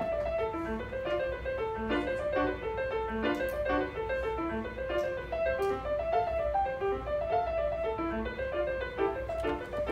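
Grand piano played solo: a classical piece in a steady stream of quick, short notes, mostly in the middle register.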